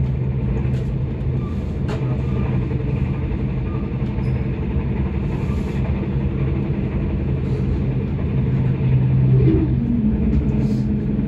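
Electric intercity train running, heard from inside the carriage: a steady low rumble with an even electric hum and a few faint clicks. Near the end the hum shifts a little lower in pitch and the sound grows slightly louder.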